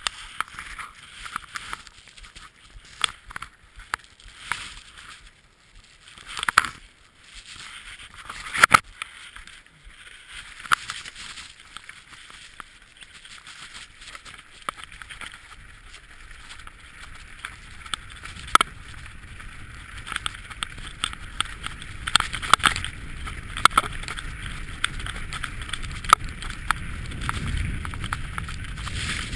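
Mountain bike riding fast down a loose gravel track: a steady crunch and hiss of tyres on stones, broken by many sharp clicks and knocks as the bike rattles over bumps, with a low rumble that grows over the last ten seconds as speed builds.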